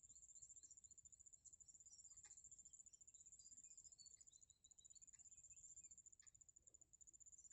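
Faint, high-pitched insect trilling that runs on with only brief breaks, with scattered short high chirps and a few ticks.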